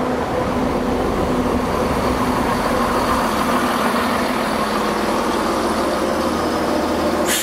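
Transport for Wales diesel multiple unit pulling out along the platform: a steady engine and wheel rumble with a low hum.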